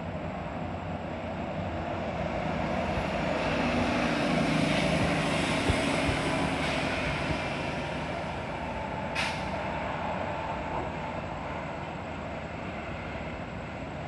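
A vehicle passing, swelling for several seconds and then fading, with a short sharp hiss a little past the middle.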